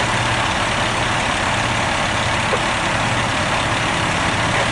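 Fire engine's engine idling steadily with a low hum.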